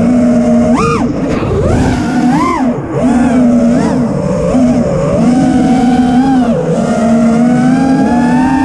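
FPV racing drone's brushless motors and propellers whining, the pitch swooping up and down with quick throttle punches, then climbing steadily near the end. The sound is of four Ethix Mr Steele Stout 2306 1750KV motors spinning HQProp Ethix S3 props on a 6S battery.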